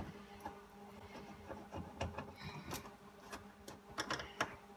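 Screwdriver working the screws of the center console's shifter trim plate in a 1969 Camaro: scattered small clicks and scrapes of metal on trim, over a faint steady hum.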